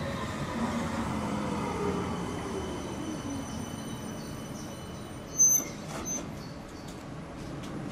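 CAF Urbos 100 electric tram braking to a stop alongside the platform: the traction motors whine in several tones that fall steadily in pitch over wheel rumble that dies away. About five and a half seconds in there is one brief, loud, high-pitched squeal.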